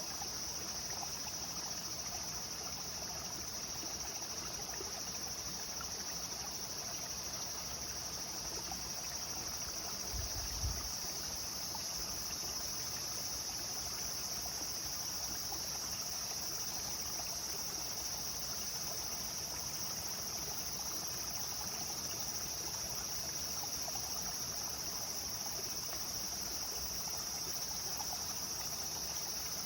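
Clear river flowing steadily, with a constant high-pitched insect chorus over the water. There is one brief low thump about ten seconds in.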